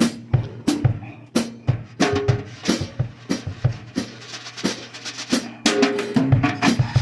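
Drum-led music: a drum kit playing a busy run of snare and bass drum hits, with a sparser stretch in the middle.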